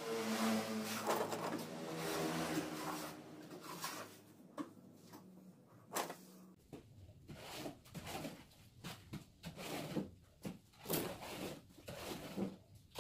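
Thin steel reinforcing rods being picked up and handled on a concrete work table, giving irregular clicks, light knocks and scrapes. A steady droning hum runs underneath and stops about six and a half seconds in.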